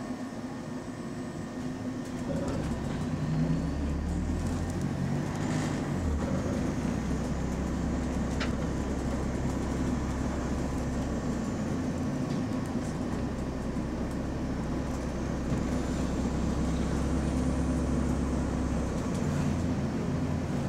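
Diesel engine of a London double-decker bus heard from inside the cabin, pulling away and accelerating with a steady low drone that builds about two seconds in and shifts a few times as it gathers speed.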